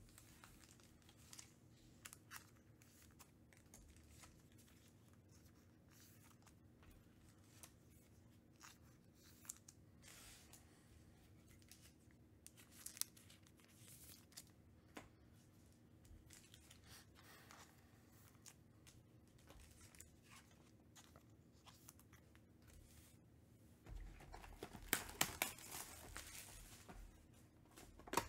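Mostly near silence with scattered faint clicks and rustles. About 24 seconds in, a few seconds of crinkling and tearing come as the plastic wrapping is pulled off a sealed box of trading cards.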